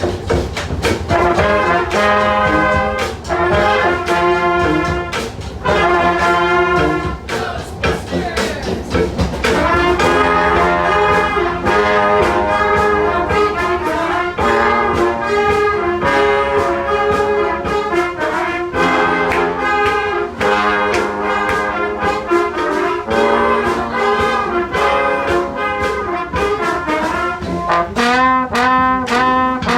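A street brass band playing a lively tune, with horn melody and chords over a steady beat.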